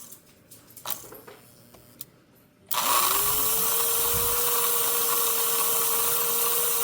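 American Flyer 322 model steam locomotive's motor and gearing winding down to a stop, a couple of sharp clicks while it stands, then starting up again about three seconds in, its whine rising to a steady pitch as it runs the other way. It runs smoothly and quietly in both directions.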